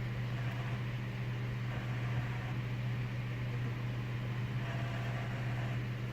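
Steady low hum with an even hiss inside the cabin of a running Dodge Grand Caravan minivan.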